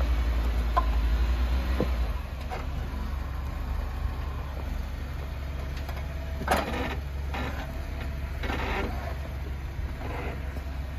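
Jeep Wrangler JK's V6 engine rumbling low and steady as it crawls over rocks, easing off about two seconds in. Two short bursts of crunching come about six and a half and eight and a half seconds in.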